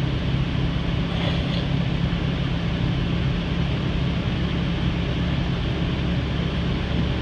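Chevrolet K20 pickup's engine idling steadily, still cold after a hard start, heard from the cab.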